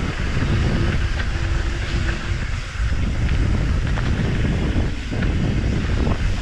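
Mountain bike riding down a steep dirt trail: a steady rumble of wind buffeting the camera microphone over tyre and bike rattle, broken by scattered clicks and knocks.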